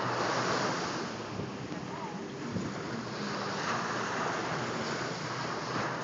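Small waves breaking and washing up on a sandy beach, the surf swelling and easing off every couple of seconds.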